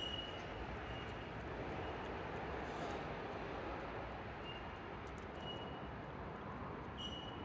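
Steady background rumble and hiss, with a few brief, faint high-pitched peeps scattered through it.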